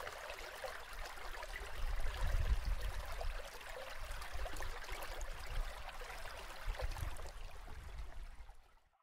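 Flowing water of a small fish-spawning creek, heard underwater: a steady rushing hiss over a deep rumble that swells twice. It cuts off suddenly just before the end.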